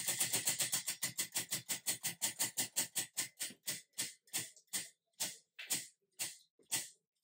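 Spinning prize wheel clicking as its pointer hits the pegs around the rim, rapid at first and slowing steadily as the wheel winds down, until the clicks come about half a second apart near the end.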